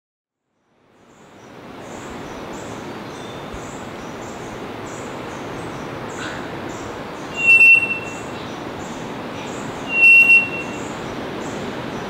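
Male three-wattled bellbird calling twice, about two and a half seconds apart. Each call is a loud, bell-like note of about half a second, held on one pitch and starting sharply. Under the calls is a steady background hiss that fades in over the first couple of seconds.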